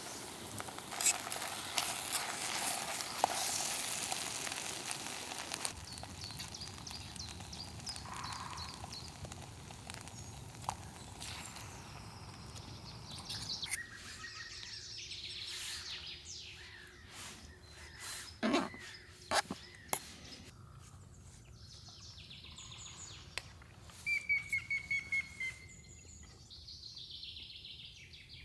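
Birds chirping in the forest, with a short trill near the end. A crackling hiss fills roughly the first half, and a few sharp knocks come in the middle.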